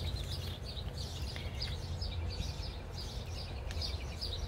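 Small birds chirping, a steady run of short, high, quick notes, over a low steady rumble.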